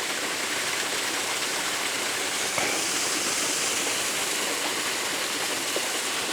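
Small woodland waterfall on a brook, water gushing over a sandstone ledge and splashing down onto rocks: a steady rushing. A faint click about two and a half seconds in.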